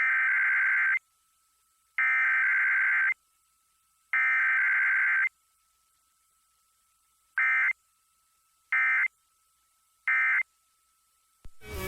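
Emergency Alert System SAME data bursts: the digital header warble sent three times, about a second each with a second's silence between, then three short end-of-message bursts. There is no attention tone or spoken message between them, as in a Required Weekly Test.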